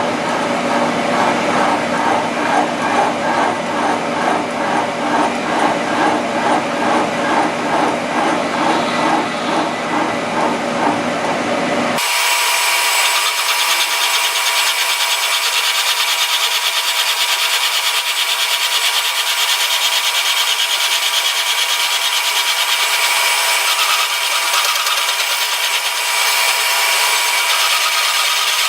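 Milling machine cutting the vise base, the cut pulsing about twice a second. About twelve seconds in the sound changes abruptly to a steady, high-pitched cutting noise with no low end.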